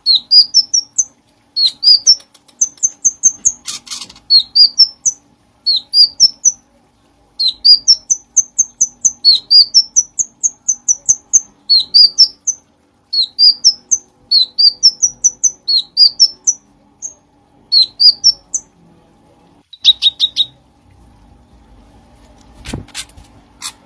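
Cucak cungkok singing steadily: phrases of quick, short whistled notes, each phrase climbing in pitch over about a second and repeated again and again with brief pauses. The song stops about twenty seconds in, leaving a faint steady hum and a short sharp sound near the end.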